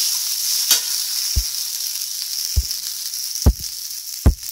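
Cooked rice being stirred with a steel spoon in a metal pan of hot coconut-oil tempering: a steady sizzling hiss, with a few dull knocks of the spoon against the pan about once a second.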